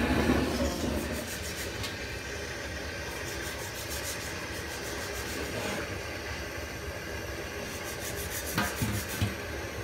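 A knife sawing and scraping through the singed skin and cartilage of a pig's head as an ear is cut off, in repeated strokes. A gas blowtorch flame hisses steadily underneath.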